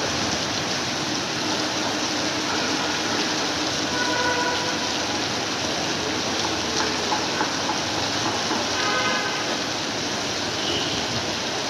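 Heavy rain pouring steadily onto pavement, a dense even hiss. Faint brief tones sound in the background twice, once a few seconds in and again later on.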